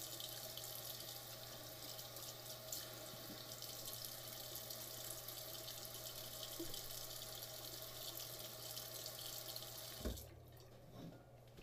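Sink tap running cold water in a steady stream; the running water stops abruptly about ten seconds in, with a brief thump.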